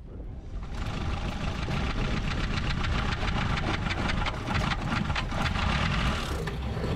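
Car engine running on pistons fitted without rings, with a rapid clattering knock over the engine note. The knocking is a sign of the unhealthy noise of too-tight ringless pistons being pinched in the bores.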